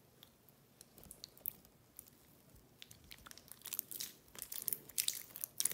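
Clear dish soap and salt slime being stretched and squeezed by hand, giving sticky clicks and crackles that are sparse at first and come thick and fast from about halfway through.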